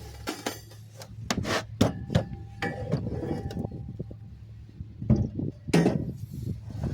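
Irregular knocks, clicks and rubbing as tools and metal parts are handled and set down, with a few louder clunks about a second and a half in and again about five seconds in.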